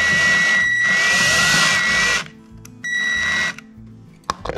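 Ridgid cordless drill spinning a step drill bit through the plastic dash panel of a snowmobile to open the hole to 1 inch: a long run with a steady high motor whine that dips briefly partway and stops about two seconds in, then a short second burst. A few sharp clicks near the end.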